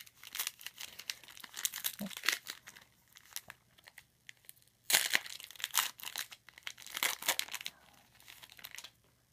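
A trading card pack's wrapper crinkling and being torn open in a run of short crackles, loudest about five seconds in and again around seven seconds, stopping shortly before the end.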